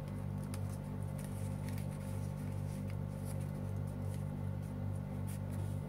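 Origami paper being folded by hand: faint crinkles and rustles as the sheet is handled and creased, over a steady low hum.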